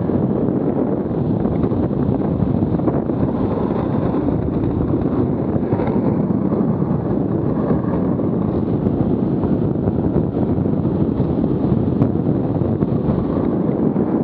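Wind buffeting a body-mounted microphone, mixed with the hard wheels of a Buggy Rollin wheel suit rolling on asphalt during a downhill run at about 40 to 48 km/h. It is a loud, steady rush.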